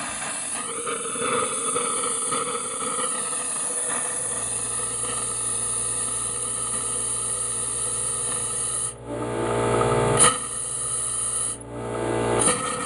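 Compressed air hissing and sputtering out of an open RV sink faucet as the water lines are blown out to winterize them, with a steady low hum starting about four seconds in. The hiss cuts out briefly twice near the end, as the faucet is shut and reopened.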